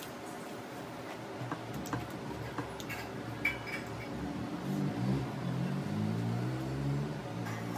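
Eating by hand from a steel plate: fingers mixing and squeezing rice against the plate, with light clicks, a brief metallic clink about halfway through, and chewing. From about the middle on, a faint low-pitched sound that wavers in pitch runs underneath.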